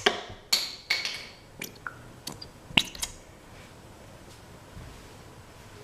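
White school glue being squeezed from a bottle into slime: a sharp click, then several short wet squishes and squirts over the first three seconds.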